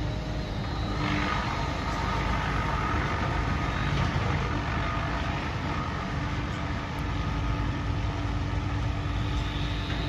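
An engine running steadily, a constant mechanical drone with a faint steady whine above it.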